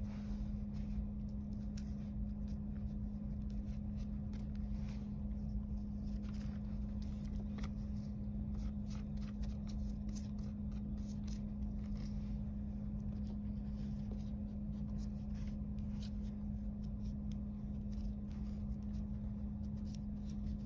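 Faint, irregular rustling and soft squishing of wet paper-towel strips being wrapped and smoothed by hand around a paper mache figurine, over a steady low hum.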